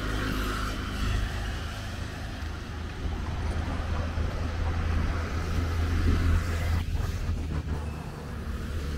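Street traffic: vehicles driving past with a steady low engine rumble that swells to its loudest about six seconds in.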